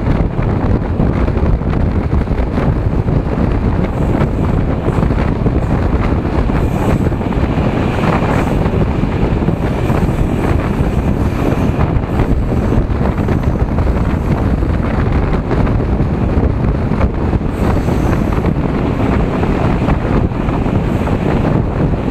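Loud, steady wind buffeting a microphone held out of a moving passenger train's window, over the rumble of the train running on the rails.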